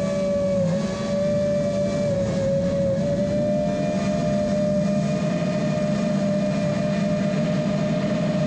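Six-inch FPV quadcopter's T-Motor 2323 brushless motors and propellers whining at a steady cruising pitch, dipping slightly about a second in and again a little later, heard close up from the onboard camera.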